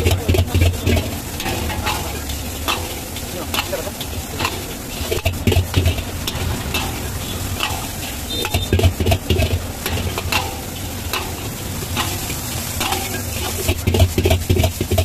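Vegetable egg rice being stir-fried in a hot pan: a metal spatula repeatedly strikes and scrapes the pan at a quick, uneven pace over a steady sizzle.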